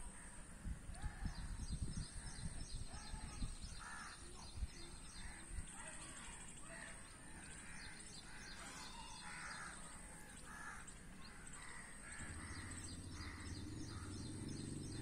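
Outdoor ambience of birds calling: a string of short, harsh calls about twice a second, over fine high chirping. A low rumble sits under the first few seconds, and a low hum comes in near the end.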